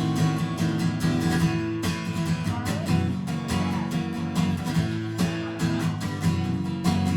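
Guitar playing an instrumental break of a song, strummed and picked in a steady rhythm, with no singing.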